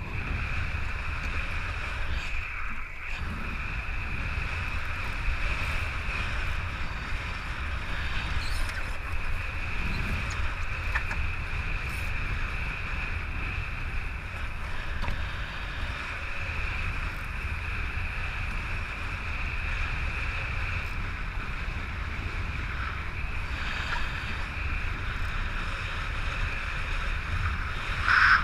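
Wind buffeting the microphone and water rushing past a Voodoo foiling Moth dinghy under sail, a steady high hiss over a low rumble, with a brief louder burst near the end.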